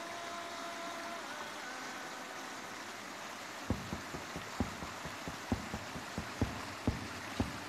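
Background music: a few held notes that fade out within the first second or two over a steady hiss, then a soft, quick percussion beat that comes in about halfway through.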